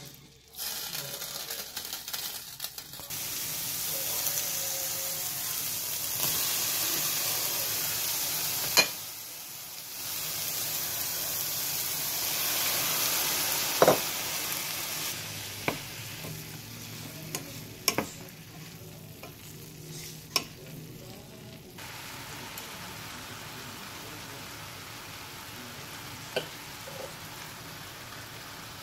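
Diced zucchini and chopped cabbage frying in a stainless steel skillet: irregular rustling as the zucchini is tipped in at the start, then a steady sizzle, loud at first and quieter from about halfway. Sharp clicks of a metal spoon against the pan come now and then as the vegetables are stirred.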